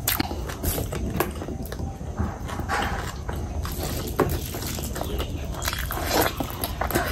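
Close-miked eating: wet chewing and lip-smacking clicks as a person eats spicy curry and rice by hand, with fingers squishing through the rice and a big mouthful taken near the end.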